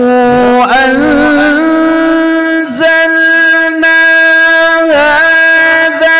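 A male qari reciting the Quran solo in the melodic tilawah style. He starts a new phrase on a rising note and holds long, ornamented notes, stepping up in pitch about a second and a half in.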